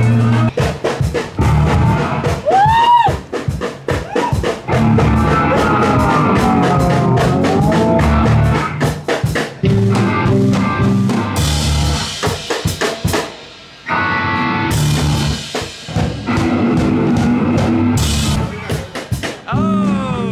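Rock music with a loud drum kit, kick and snare hitting steadily over a bass line, with guitar.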